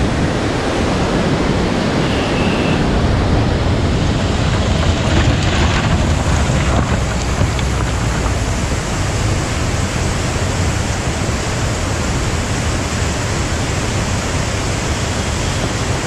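Steady rush of a fast mountain stream tumbling over rocks, mixed with wind noise buffeting the microphone.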